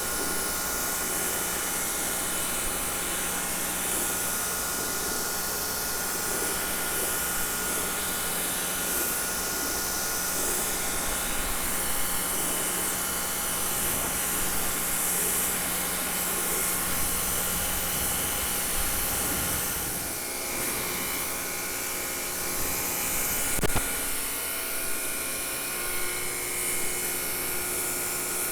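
Prymax 3000 PSI electric pressure washer running: a steady motor-and-pump whine under the hiss of the water spray, its note changing about twenty seconds in.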